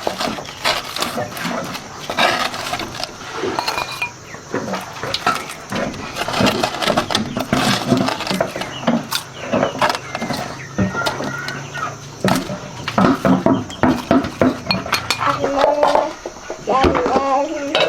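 Dishes and utensils clinking: many quick, irregular knocks and clinks, with voices joining toward the end.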